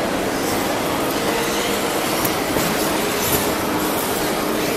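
Radio-controlled 2WD electric offroad buggies racing on an indoor track. Their motors and tyres make a steady whir that blends into the general noise of a large hall.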